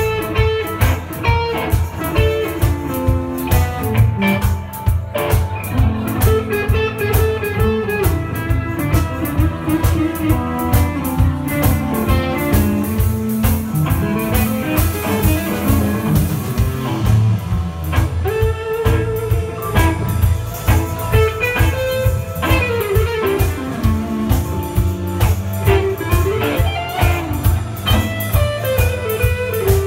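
Live blues band playing an instrumental passage: electric guitars, bass guitar and drum kit, with a steady beat.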